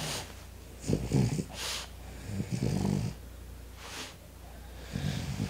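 French bulldog snoring: three rattly, snorting breaths about a second and a half apart, with softer hissing breaths between them.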